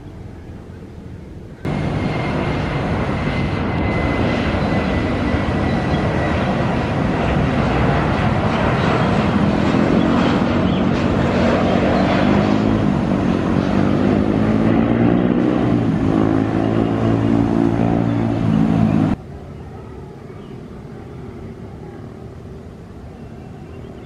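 Jet engines of a Boeing 737 airliner running at high power as it rolls along the runway: a loud, even rush of jet noise. It cuts in sharply about two seconds in. From about halfway through, a wavering, shifting pattern of tones comes in as the jet passes. The noise cuts off abruptly about five seconds before the end.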